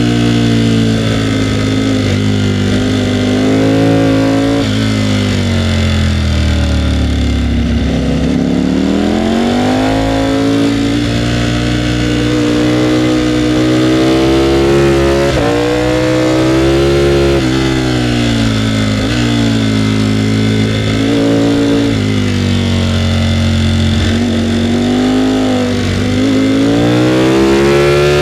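Ducati Panigale V4R's V4 engine under way, its pitch climbing under throttle and dropping off again and again, with sudden drops between the climbs and a deep slow fall about a third of the way through before it picks up again.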